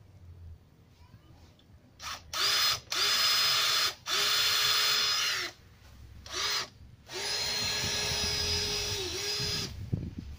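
Makita cordless drill running in a series of bursts, starting about two seconds in, each spinning up to a steady whine and winding down, the longest near the end. It is drilling holes through the amplifier chassis for cable ties.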